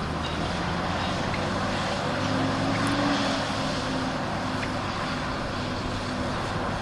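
Heavy diesel engine of earth-moving machinery running under load, rising a little in pitch and loudness about two to three seconds in, then settling back.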